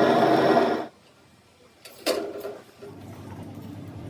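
Metal lathe running with a steady, many-toned hum, then shutting off abruptly about a second in. A sharp click and a short knock follow, then a faint low hum.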